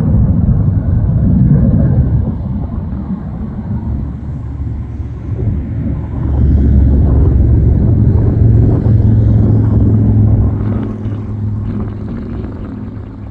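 Distant fighter jet on landing approach: a steady, low engine rumble that swells about six seconds in and eases off about ten seconds in.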